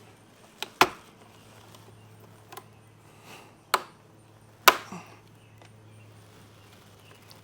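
A handful of sharp clicks and knocks, about six spread over several seconds, from hands handling the wiring and switch parts on the motorcycle, with a faint steady low hum underneath.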